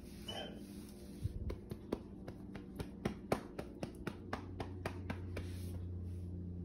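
Irregular light clicks and taps, several a second, typical of a dog's claws on a tile floor, with a hand rubbing the dog's fabric shirt.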